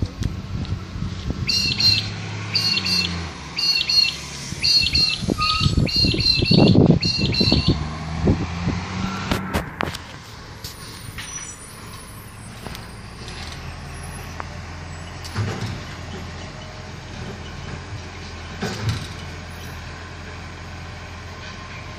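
A vehicle engine running in the street, loudest about six to seven seconds in, then settling to a steady low hum from about ten seconds in. A bird chirps over and over during the first several seconds.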